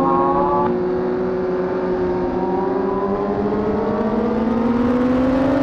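Honda CBR1000RR SC57 inline-four engine pulling under throttle, its pitch holding for a couple of seconds and then rising steadily as the bike accelerates.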